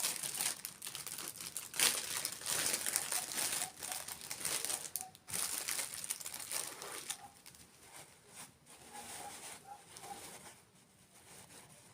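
Close-miked crinkling and crackling from eating and handling sweets, dense for about seven seconds, then fading to faint clicks and small squeaks.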